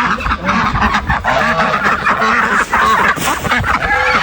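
Domestic geese honking over and over, several calls overlapping.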